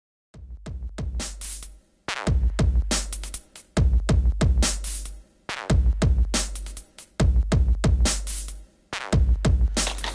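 Electronic background music with a heavy drum-machine beat and deep bass, starting abruptly just after a brief silence.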